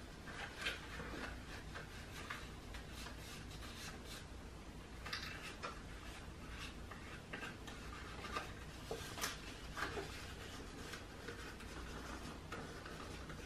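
Faint rustling and rubbing of paper being handled: a glue stick rubbed over small paper pieces and the pieces pressed into place, with scattered light taps.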